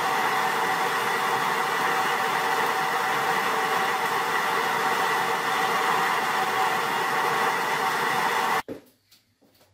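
Propane burner running steadily under a stainless brew pot, heating a thick mash decoction to the boil. The steady noise cuts off abruptly near the end.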